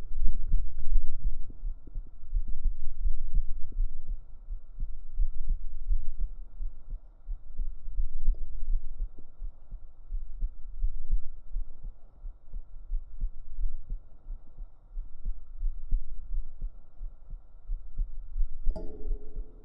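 Deep human heartbeat recorded up close: a steady run of low, muffled thumps. A brief higher-pitched sound comes in near the end.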